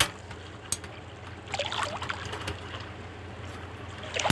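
A sharp click, then a short hissing, rustling burst of handling noise as a butane canister is worked into a portable butane stove that it won't yet lock into.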